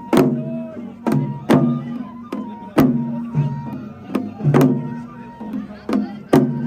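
Rhythmic music with sharp drum strikes about twice a second, each followed by ringing pitched notes, over sustained lower tones.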